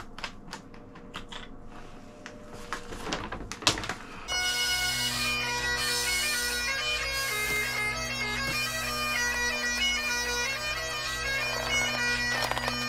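Bagpipe music, a steady drone under a stepping melody, comes in about four seconds in and cuts off abruptly at the end. Before it there are light clicks and rustling of fabric and plastic as the cap comes off the seat's inflation valve.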